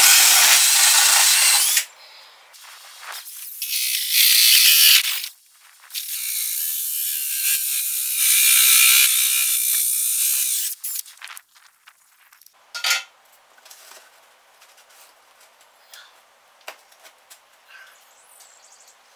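Cordless drill spinning a 64 mm hole saw and cutting through the wall, in three runs of about two, two and five seconds. After that it is much quieter, with a few light knocks and one sharp click.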